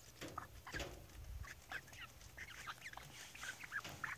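Several hens giving many short, quick clucks and chirps while they feed at a bowl, with a brief low rumble about a second in.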